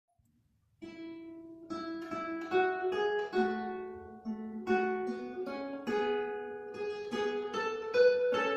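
Guitar duet: two acoustic guitars playing a gentle melodic piece in separate plucked notes, each ringing out, starting about a second in.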